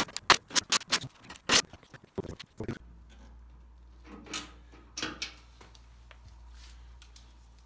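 Quick run of sharp metal clicks and knocks from the sand muller's sheet-steel cover and scoop being handled, easing after about three seconds into a few scattered knocks over a low steady hum.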